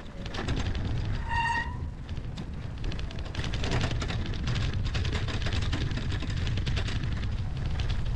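A bicycle pushing through deep snow: a steady rumble with dense crunching and crackling of snow under and around the wheel. About a second and a half in, a short electronic-sounding beep rises above it.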